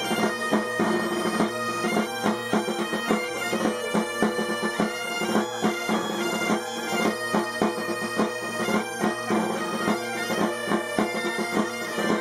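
Asturian gaitas (bagpipes) played together: a quick, continuous melody on the chanters over a steady drone, heard inside a tram car.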